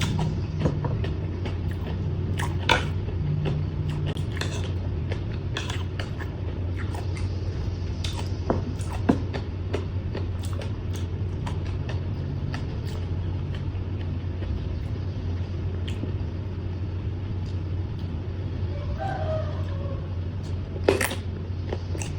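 Close-up eating sounds: scattered crisp crunches and wet clicks of chewing spicy papaya salad with vegetables, over a steady low hum.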